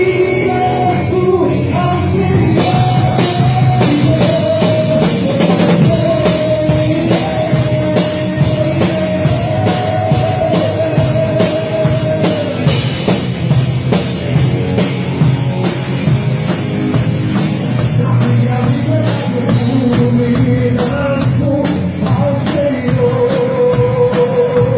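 A worship band playing a song with drum kit and other instruments, with a voice singing long held notes over it.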